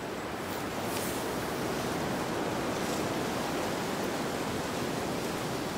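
Strong wind blowing through a spruce forest: a steady, even rushing noise that swells a little in the first second and then holds.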